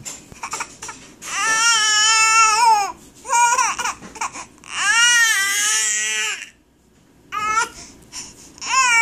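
Infant girl fussing and crying in high-pitched wails, several in a row with short pauses between, the two longest lasting over a second each.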